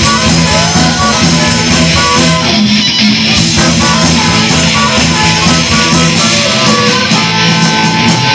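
Live band playing an instrumental passage with no singing: electric guitars, bass and drums, with a trumpet playing over them.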